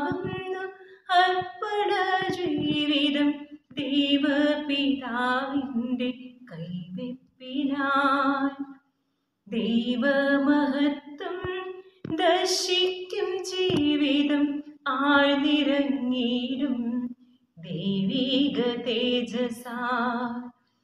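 A woman singing a poem solo and unaccompanied, in held notes with a slight waver, phrase by phrase with short pauses for breath between them.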